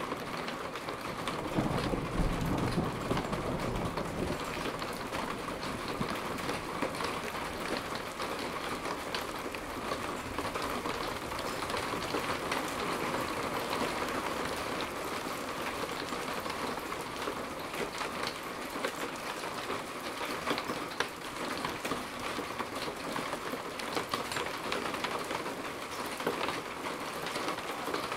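Steady thunderstorm rain falling, with a low rumble of thunder about two seconds in.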